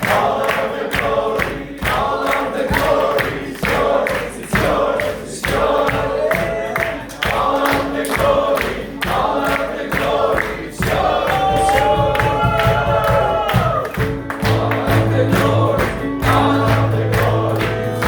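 Gospel worship music: voices singing together over a steady beat, with one long held note with vibrato about two-thirds of the way through.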